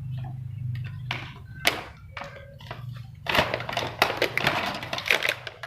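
A toy racing-track set's packaging being handled and opened: a few knocks and taps, then dense crinkling and rustling from about three seconds in, over a steady low hum.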